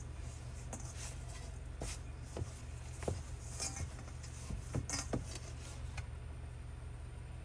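Scattered light knocks and clicks of soft, sticky homemade bread dough being mixed and worked in a bowl, over a steady low hum.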